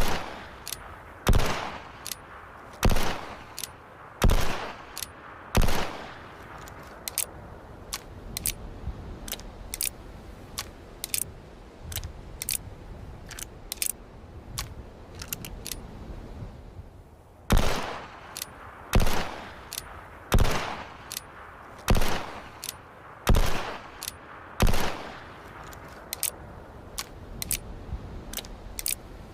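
Single-action revolver firing, the shots spaced about a second and a half apart and each ringing out: five in a row, then a long run of small metallic clicks, then six more shots, then more clicking.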